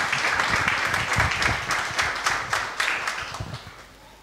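Congregation applauding, many hands clapping at once, the applause dying away near the end.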